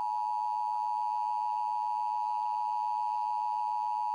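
Emergency Alert System attention signal: the steady two-tone alert (853 and 960 Hz together) that comes before an EAS message, held unbroken at an even level.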